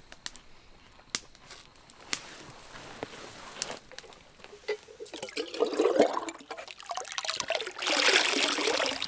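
Water pouring from a black camp kettle into a lake, splashing on the surface. The rushing water builds from about halfway through and is loudest near the end, after a few faint scattered clicks at the start.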